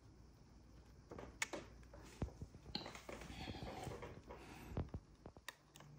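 Faint clicks and scraping of metal tweezers against the small plastic clips of a MacBook Pro butterfly-keyboard spacebar mechanism. A few sharp ticks are heard, and a stretch of rustling scraping falls in the middle.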